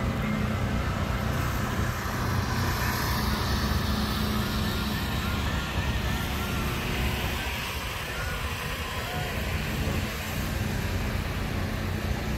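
Engine running steadily, a constant low drone, with faint voices in the background.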